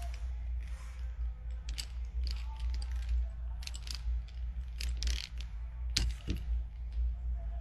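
Irregular small mechanical clicks and knocks over a steady low hum, with a louder knock about six seconds in.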